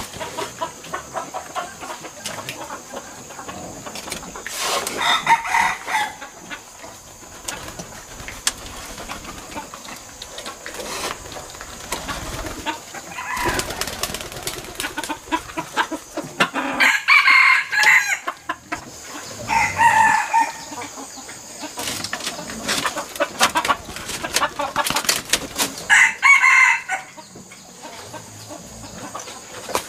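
Chickens calling: four loud calls spaced through the stretch, over light clicking and knocking as eggs are gathered off a bamboo nesting shelf.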